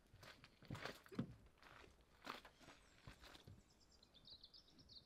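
Faint footsteps crunching on gravel, a person walking up to a car and climbing in, with a few soft knocks. Near the end, a short run of faint high chirps.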